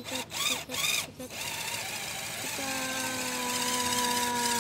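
RC scale crawler's electric motor and geared drivetrain whining under load as the truck crawls up and out of a rut. The whine gets louder after about a second, and from about halfway through a steady pitched tone sags slightly as the motor strains on the climb.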